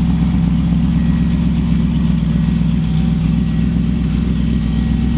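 Race truck's 6-liter engine idling steadily.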